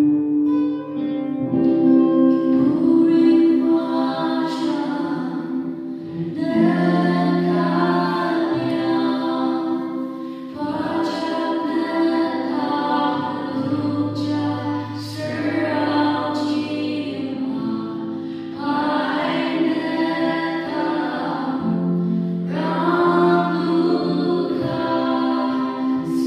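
Two women singing a worship song in the Ao Naga language, in long phrases, to acoustic guitar accompaniment.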